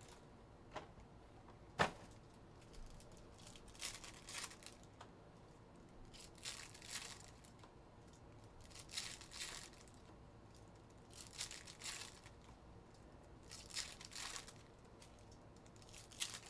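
Foil wrappers of trading card packs being torn open one after another, a short crinkly tearing in pairs about every two and a half seconds. A single sharp tap about two seconds in.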